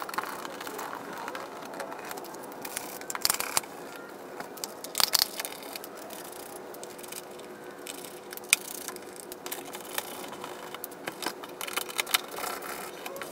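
Irregular clicks, rattles and scrapes of a small hand tool on self-tapping screws as a plastic wheel-arch liner is unfastened, with a few sharper clicks scattered through.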